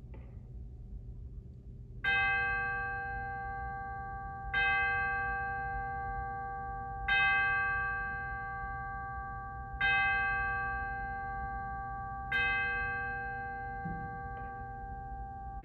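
A bell struck five times, about two and a half seconds apart, each stroke at the same pitch and ringing on, fading slowly until the next.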